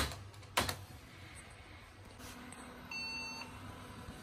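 Two sharp clicks, then about three seconds in a single short electronic beep from the HP desktop as it restarts after saving BIOS settings. A faint low hum of the case fans comes in shortly before the beep.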